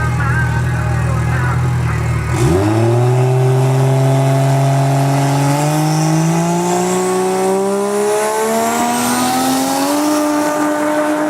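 Turbocharged Nissan RB straight-six in a VL Commodore drag car, held at steady revs on the start line. About two seconds in it launches: the engine note dips, then climbs steadily in pitch as the car accelerates down the strip.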